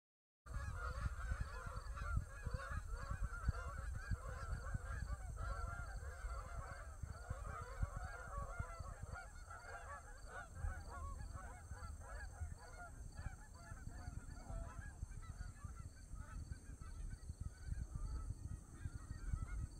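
A flock of Canada geese honking, many calls overlapping. The calls begin about half a second in and thin out somewhat in the second half, over a steady low rumble.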